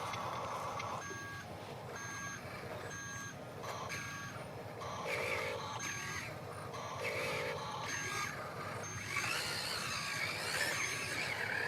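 Reversing alarm from a Huina RC construction model's sound module: short electronic beeps repeating a little more than once a second, starting about a second in, over the model's running motor noise.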